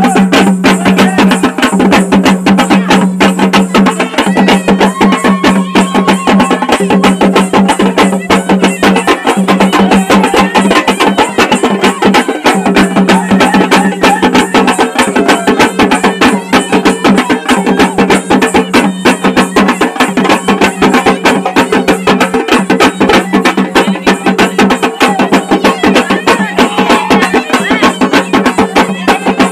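Several dappu frame drums beaten together in a fast, driving rhythm, loud and continuous, with a steady low tone under the drumming.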